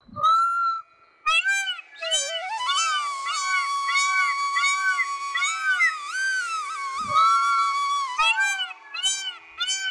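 Background music: a flute-like melody of short, evenly repeated arching notes over a long held tone, with a few gliding phrases.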